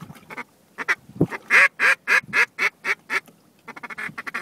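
Hunter's duck call blown in a string of about eight quacks, loudest about a second and a half in and tapering off. Near the end it breaks into a fast chattering run.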